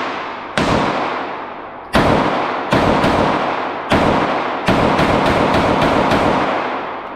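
Eleven pistol shots from a Taurus G2C 9mm, each with a long echo off the walls of an indoor range: spaced out at first, then a quick string of six near the end at about three a second, emptying the 12-round magazine.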